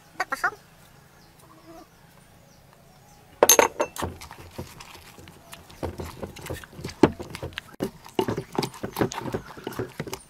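Wooden pestle pounding chilies, lime and sauce in a wooden mortar: a few light knocks at first, one sharp knock a few seconds in, then a quick run of repeated thuds, about two or three a second.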